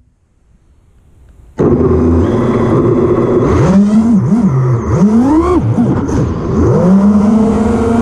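FPV racing quadcopter's brushless motors (BrotherHobby R5 2450kv spinning Gemfan Flash 5149 props) whining as the quad flies, the pitch swooping up and down with each throttle punch. The sound cuts in suddenly about a second and a half in, after near quiet.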